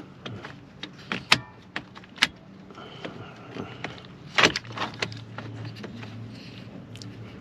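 Scattered sharp clicks and knocks of plastic parts and hand tools being handled at a car's steering column, over a steady low hum.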